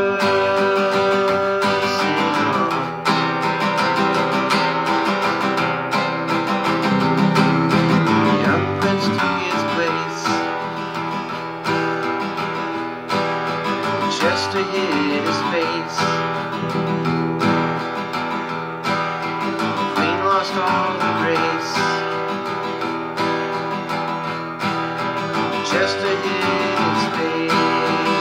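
Acoustic guitar being strummed steadily through a song, with a man's voice singing along in places.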